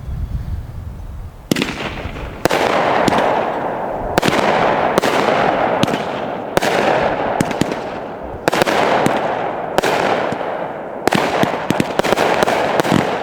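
A Magnus Fireworks 'Tsunami Warning' 200-gram, 16-shot consumer firework cake firing. Sharp shots begin about a second and a half in and come roughly once a second, each trailed by a hiss. The shots come faster near the end in the finale.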